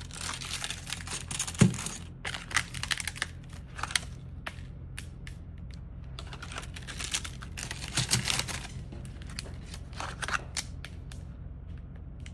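Block ice and a plastic ice-making tray being handled: crinkling and crackling with scattered clicks, and two dull knocks, one about a second and a half in and one about eight seconds in.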